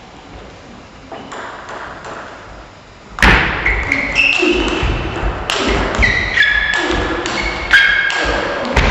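Table tennis rally: the celluloid ball struck by the bats and bouncing on the table, a quick run of sharp, ringing pings that starts about three seconds in and ends with a harder hit near the end. A few faint taps come before it.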